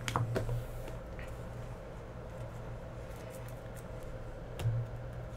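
Trading cards being handled on a desk: a couple of sharp clicks just after the start, faint ticks later, and a knock near the end, over a steady low hum.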